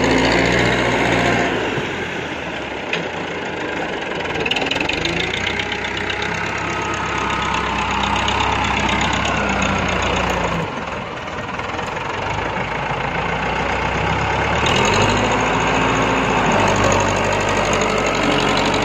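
TAFE 5900 tractor's diesel engine running under load as the tractor churns through soft paddy mud, its pitch rising and falling several times as the throttle and load change.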